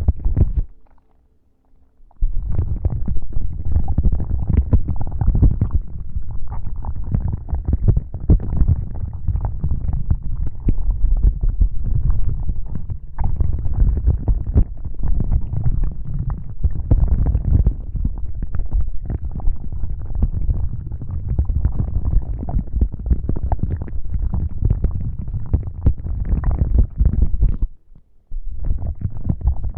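Close-up rubbing and scratching on the microphone, a dense, crackly, continuous texture with a deep rumbling low end. It stops just after the start, comes back about two seconds in, and pauses briefly once more near the end.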